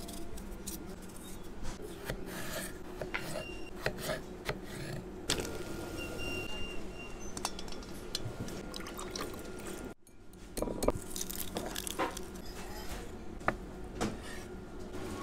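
Kitchen handling sounds: a knife working on a potato, then clinks against a steel pot with a little water, as scattered clicks and taps over a steady low hum. The sound drops out for a moment about ten seconds in.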